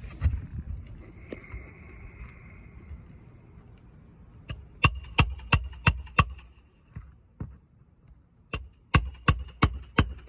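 Hammer driving roofing nails back into an asphalt shingle: two runs of about five sharp, ringing strikes at roughly three a second, the first about halfway in and the second near the end, with lighter knocks and handling before them.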